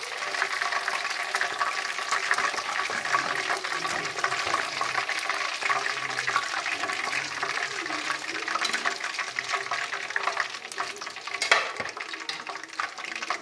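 Hot oil sizzling and crackling in a deep frying pan as batches of masala-coated chicken are lifted out with a wire skimmer, the sizzle easing as the pan empties. A sharp tap sounds near the end.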